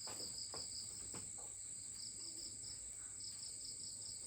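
Insects chirring steadily: a high continuous drone with a fast pulsing trill a little lower in pitch. A few faint brief sounds come in the first second and a half.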